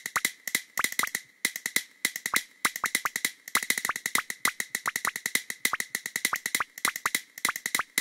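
Castanets clicking in a quick, slightly uneven rhythm of several sharp clicks a second, with a couple of short breaks.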